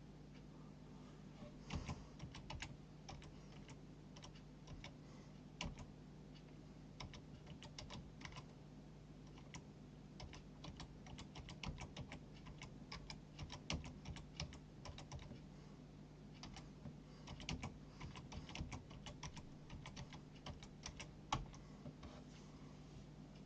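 Typing on a computer keyboard: irregular runs of clicks, the loudest about two, fourteen and twenty-one seconds in, over a steady low hum.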